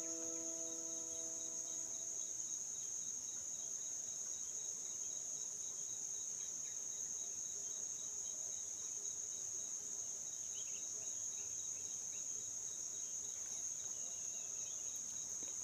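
Steady, high-pitched chorus of insects, an unbroken drone that holds level throughout, with a few faint chirps near the end.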